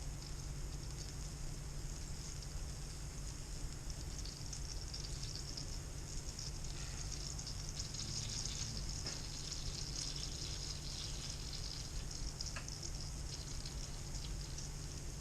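Sizzling in a hot pan on the stove: a steady crackly hiss, livelier in the second half, over a low steady hum.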